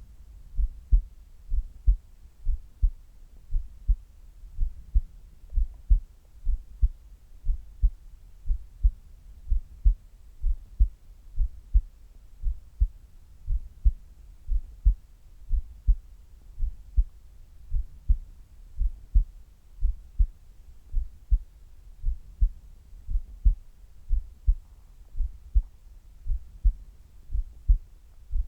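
A person's heart at rest, close-recorded: a steady, even heartbeat, each beat a pair of low thuds (lub-dub).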